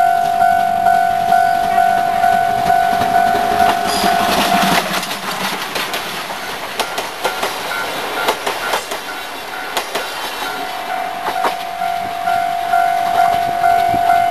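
Japanese level-crossing alarm ringing in a steady beat of about two strokes a second. About five seconds in a steam train reaches the crossing and its coaches pass close by, their wheels clattering over the rail joints and half drowning the alarm. The alarm rings out clearly again over the last few seconds.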